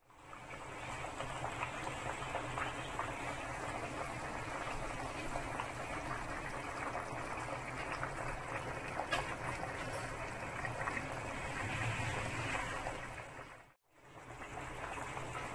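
Pot of balbacua broth boiling hard on the stove: a steady bubbling with many small pops. It breaks off for a moment near the end.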